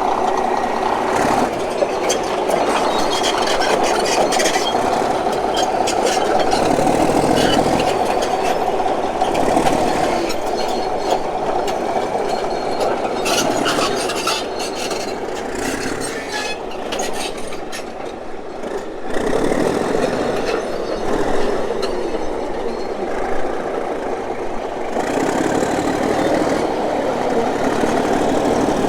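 Caterpillar D8H crawler bulldozer running, its engine working steadily with scattered clanks from the machine. The sound eases off about two-thirds of the way through and builds again a second later.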